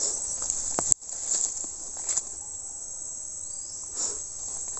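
Steady high-pitched chorus of insects such as crickets or cicadas, with a few faint rustles and a brief dropout about a second in.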